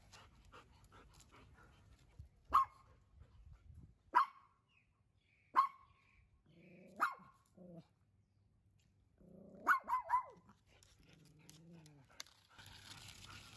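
Dogs barking: single sharp barks every second or two, then a quick run of three barks about ten seconds in, with lower, drawn-out pitched calls between them.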